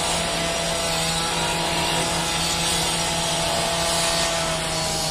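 Construction machinery running steadily: an even mechanical drone with a constant low hum and a fainter higher whine.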